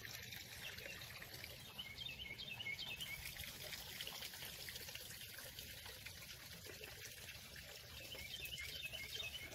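Faint bird chirping in two short runs of quick high notes, over a quiet outdoor background.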